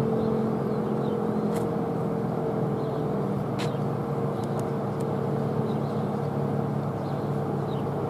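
ACA P-10 single-tone rotating outdoor warning siren sounding a steady, loud tone as its horn turns, part of a full attack test cycle.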